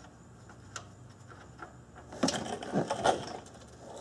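Oil drain bolt being worked loose from the oil pan with a long wrench: a few faint clicks, then from about two seconds in a louder stretch of irregular clicking and rattling.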